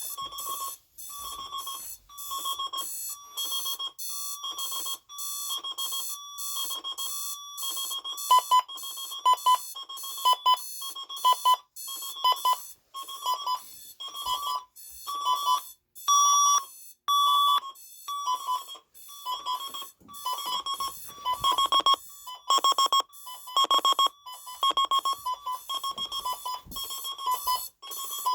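Several digital alarm clocks beeping at once, their repeating electronic beep patterns overlapping. The beeping gets louder about eight seconds in.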